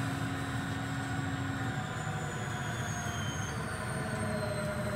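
Fendo 350M bandsaw's blade and drive motor running free, with whining tones that slowly fall in pitch as the variable-speed AC drive brings the blade down from maximum speed.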